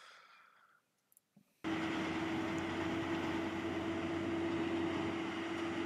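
Farm tractor's diesel engine running steadily, with a constant whine over the engine noise; it cuts in suddenly about a second and a half in, after near silence.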